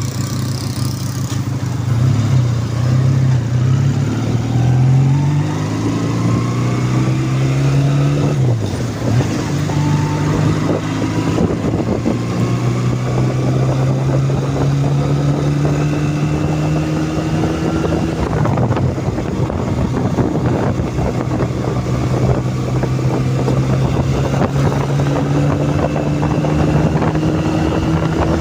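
Restored 1981 Honda CD200 Roadmaster's parallel-twin engine under way, pulling up through the gears. Its note rises, drops at a gear change about eight seconds in and again shifts around eighteen seconds, then runs nearly steady at cruising speed.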